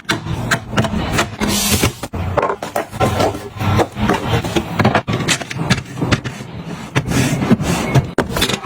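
Household items being handled and set down during organizing: an irregular run of small knocks and clicks with rubbing and scraping between them.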